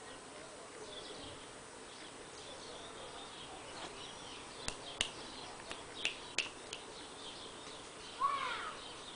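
A chihuahua gives one short high-pitched whine near the end, after a few sharp clicks in the middle.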